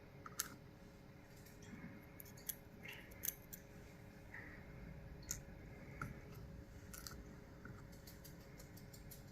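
Faint, scattered small metallic clicks and light scraping as the tiny pins of a gutted Yale 2100 lock cylinder are handled one by one.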